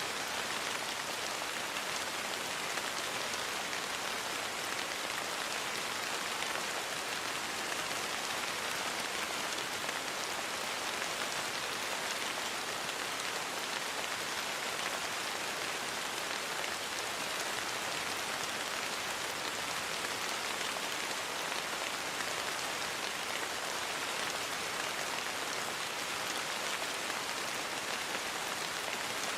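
Steady rain falling, an even hiss of many drops with no thunder.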